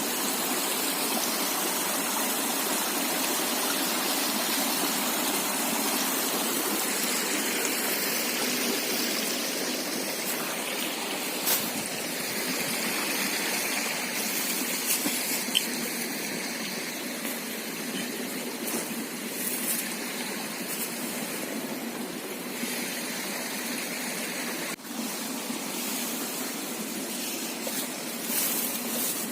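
River water flowing, a steady continuous rush, with a few faint clicks now and then.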